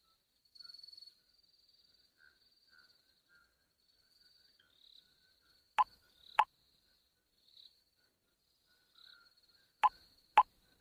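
Phone chat-message pops, two quick pops about half a second apart around six seconds in and another pair near the end, as messages arrive. Underneath, a faint steady insect chirring.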